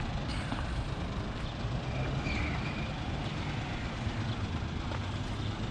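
Steady low rumble of road traffic, with a brief high squeak a little past two seconds in.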